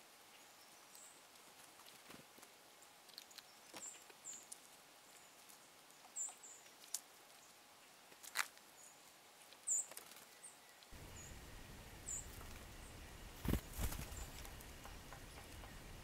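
A blue jay pecking at seed and peanuts on a stone wall: scattered sharp taps and small scratching sounds, loudest near the end. Very short, high-pitched chips of small birds come now and then.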